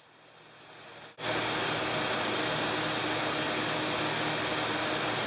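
Steady background hiss with a faint steady hum, after a brief gap of near silence about the first second.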